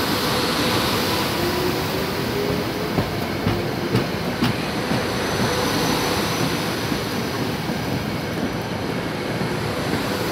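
SEPTA Silverliner IV electric commuter railcars rolling past at close range as the train pulls out of the station, with a steady rumble and hiss from wheels on rail. A faint rising whine from the traction motors comes in the first few seconds as it gathers speed, and a run of four sharp wheel clacks over rail joints falls around the middle.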